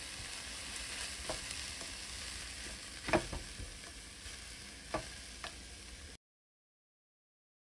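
Stir-fried perilla leaf shoots sizzling in a pan just taken off the heat, tossed with a spatula that knocks against the pan a few times, loudest about three seconds in. The sound cuts off abruptly near the end.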